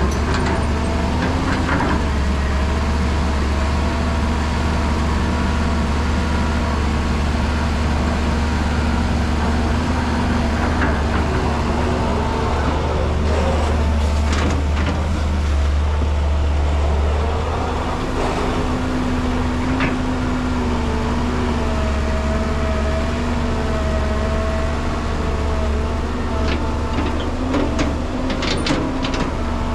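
A Caterpillar hydraulic excavator's diesel engine runs steadily under load with a deep hum, the pitch shifting as the machine works its hydraulics. Around the middle, and again near the end, a bucketload of soil and stones clatters into the dump truck's steel body.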